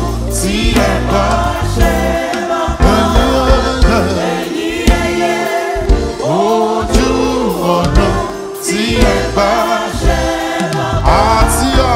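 Gospel choir singing into microphones, with instrumental accompaniment holding steady low notes underneath.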